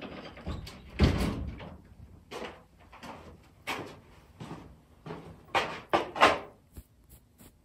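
Handling noise of a phone held with its lens covered: a string of scuffs, rubs and knocks, loudest about a second in and twice more near the end.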